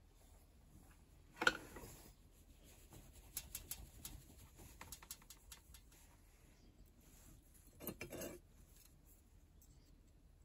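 Small metal hand tools being handled at a jeweller's bench: a short clatter about a second and a half in, a run of light clicks, and another clatter near eight seconds as the pliers are picked up to grip the brass wire.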